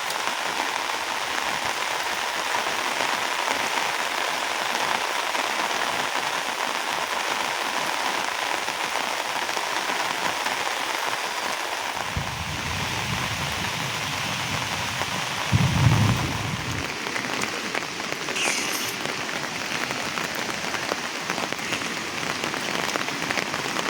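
Heavy monsoon rain falling in a steady, even hiss. A low rumble comes in about halfway through, swells briefly a few seconds later, then fades.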